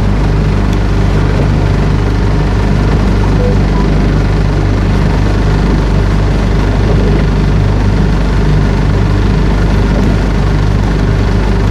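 Motorboat engine running steadily under way, a constant low drone with no change in speed.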